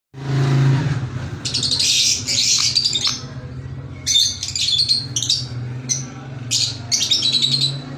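Yellow and green pet parrots chattering in repeated bursts of rapid, high chirps and squawks, with a steady low hum underneath.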